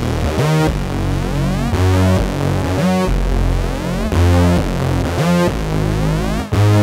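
Electronic synthesizer music: a steady low bass under a swooping synth figure that repeats about every second and a quarter.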